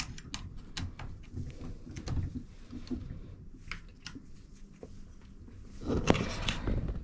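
Scattered light clicks and knocks of metal hand tools being handled, with a louder clatter about six seconds in.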